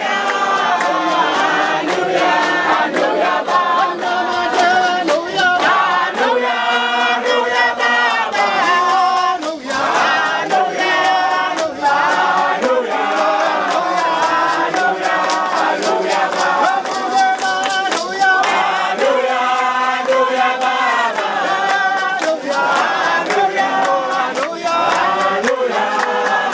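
A crowd singing together without instruments, with hand claps keeping a steady beat.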